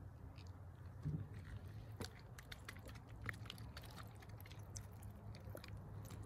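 Faint, irregular small clicks and crackles of handling noise over a low steady hum.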